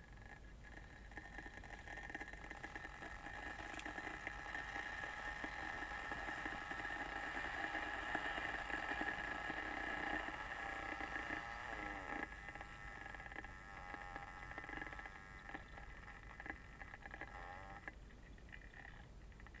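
Kettle heating water: a faint hiss with several steady tones that swells over the first half, then eases and wavers.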